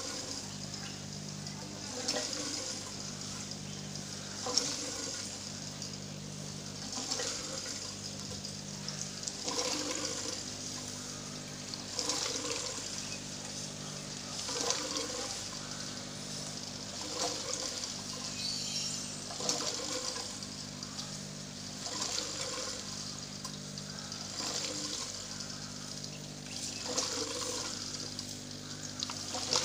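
Water gurgling and trickling through a small aquaponics pump line and plastic-bottle silencer into the grow beds, surging about every two and a half seconds. A steady low hum runs underneath.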